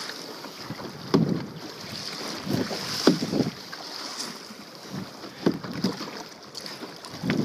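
Kayak paddle strokes in sea water: the blade dipping and pulling through the water in uneven splashes every second or two, over a steady hiss of wind on the microphone.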